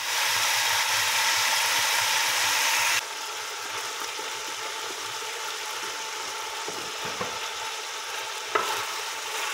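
Chicken thigh and drumstick pieces sizzling in hot oil in a metal pot as they brown. The sizzle is loud and steady, then drops abruptly about three seconds in to a quieter sizzle with a wooden spoon stirring and scraping the pieces, and one knock near the end.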